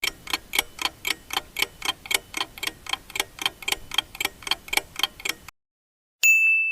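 Countdown clock sound effect ticking about four times a second, then stopping; after a short pause a single bell ding rings out and fades, signalling that the time to answer is up.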